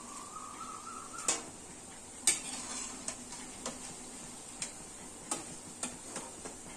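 A steel slotted spoon (jhara) clinks and taps against the kadhai about eight times while deep-fried lauki koftas are scooped out of the oil, the sharpest clink about two seconds in. Under the clinks is a faint steady sizzle of the hot frying oil.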